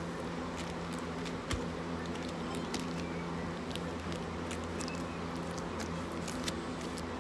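A steady low hum throughout, with faint scattered clicks and rustles of small toys and plastic packaging being handled.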